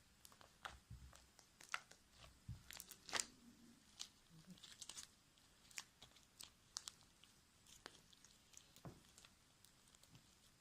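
Homemade fluffy slime being worked by hand, giving faint, irregular sticky clicks and crackles.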